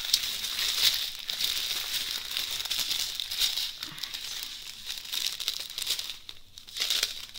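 Small plastic packets of diamond painting drills crinkling as they are handled and laid out, with a short lull about six seconds in.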